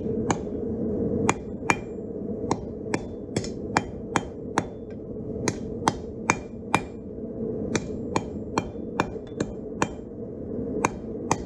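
Hand hammer striking hot steel on an anvil, drawing the steel out thinner. It is a run of sharp, ringing strikes about two to three a second with brief pauses, over a steady low rush.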